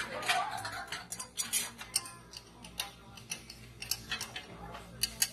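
A white liquid poured into a ribbed drinking glass, then a long spoon stirring the drink, clinking against the glass again and again in quick, irregular ticks.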